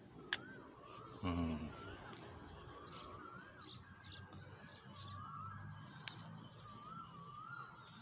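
Birds chirping and calling: many short high chirps over a repeated rising-and-falling call. A brief low voice sounds about a second in, and there are two sharp clicks.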